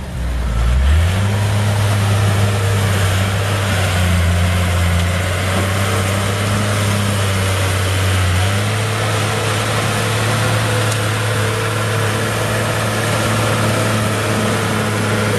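1993 Komatsu D37E crawler dozer's diesel engine running steadily while it pushes dirt and gravel with its blade. There is a brief dip and shift in the engine note about a second in.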